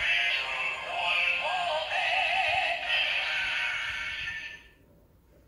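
Kamen Rider Zi-O DX Ziku-Driver toy belt, loaded with the Fourze Ridewatch, playing its electronic voice-and-music sound sequence through its small speaker. It cuts off suddenly about four and a half seconds in.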